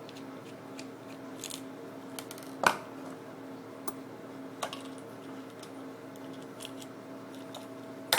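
Small screwdriver working screws out of a plastic webcam casing: scattered light clicks and scrapes, with a sharper click about two and a half seconds in.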